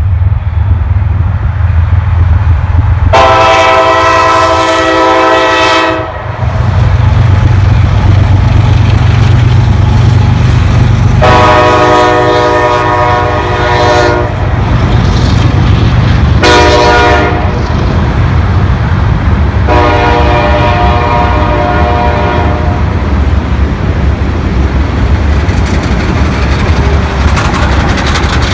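Locomotive air horn of a CSX SD70MAC sounding the grade-crossing signal: two long blasts, one short, one long. A heavy, steady diesel locomotive rumble runs underneath as the train passes.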